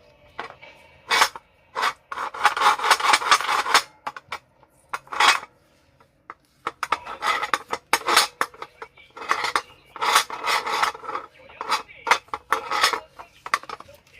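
Metal scraping and rubbing in irregular bursts, with light clatter, as the pressure rice cooker's locking parts are handled and worked.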